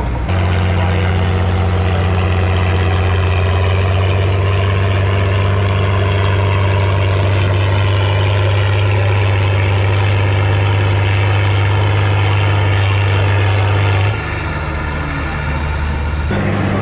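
Heavy tractor diesel engine running hard at a steady, unchanging pitch. Its note drops about 14 seconds in, and the sound cuts off abruptly near the end.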